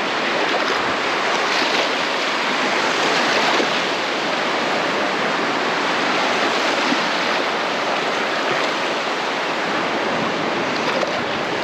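Sea surf washing onto the beach: a steady, even rush of waves.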